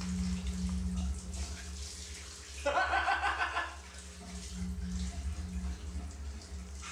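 Water running from a tap as a man washes his wet hands, over a low steady hum, with a short burst of a person's voice about three seconds in.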